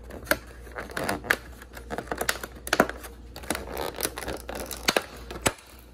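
Clear plastic clamshell takeout container being pried open by hand: the thin plastic lid crackles and snaps in a string of irregular sharp clicks.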